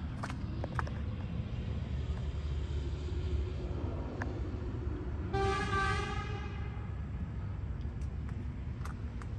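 A single short horn toot about five seconds in, one steady pitched tone lasting under a second, over a steady low rumble.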